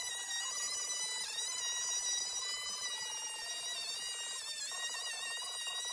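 Angle grinder running with a steady high whine, its pitch dipping now and then as the disc bites into the bumper being cut off.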